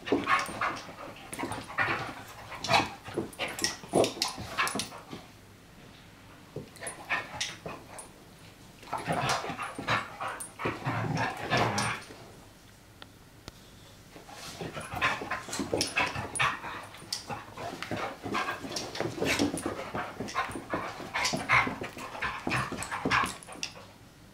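Two dogs play-fighting, a black puppy and a larger red dog, making dog play noises. The noises come in bouts of a few seconds, with short lulls between them.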